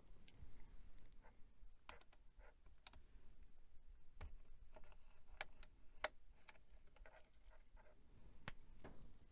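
Faint, scattered clicks and light taps of small computer parts and a screwdriver being handled while a wireless card is unscrewed and unplugged from the main board.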